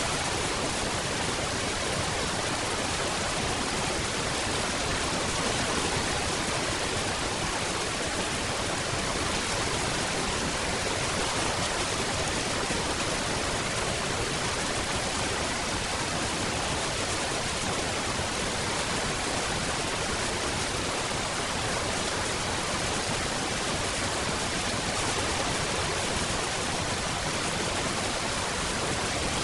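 Steady, dense rainfall as a constant even hiss, with no single drops standing out and no change in level.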